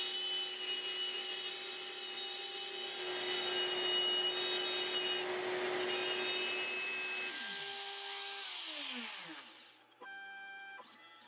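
X-Carve CNC's DeWalt trim-router spindle cutting a frame outline into hard maple with a 1/8 inch bit: a steady high whine over cutting noise. About seven seconds in it shuts off, and two falling whines wind down one after the other.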